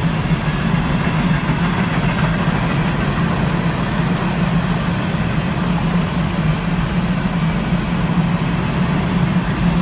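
CSX coal hopper cars of a freight train rolling past, their steel wheels on the rails making a steady noise.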